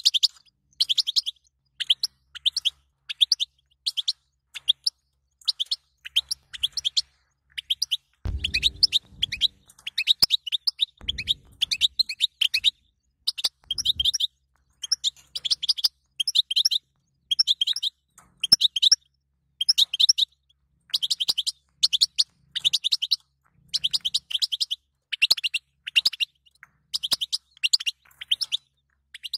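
European goldfinch calling: short bursts of rapid twittering chirps, roughly one burst a second. A brief low rumble comes twice, about eight and eleven seconds in.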